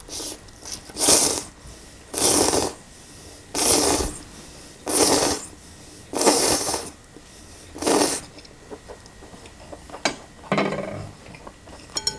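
Cold kimchi noodles slurped in a series of six loud, short slurps, about one every second and a half, followed by a few light clicks near the end.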